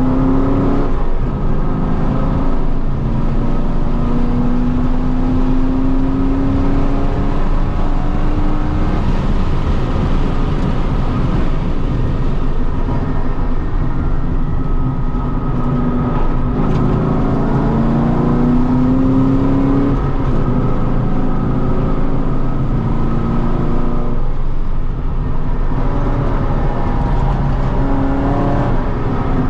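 Holden Commodore VE SS ute's 6.0-litre V8 engine under hard acceleration on a race track. Its pitch climbs steadily for several seconds at a time and then drops back, several times over, as the car pulls through the gears and lifts or brakes for corners.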